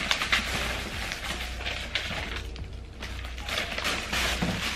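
Plastic wrapping crinkling and cardboard packaging rustling as a printer is lifted out of its box, in many short irregular crackles, with light background music.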